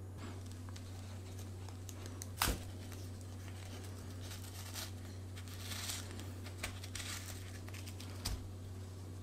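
Paper baking cup being peeled and torn away from the side of a baked cheesecake: crinkling and tearing paper in short rustles. A sharp tap about two and a half seconds in is the loudest sound, with a second one near the end, over a steady low hum.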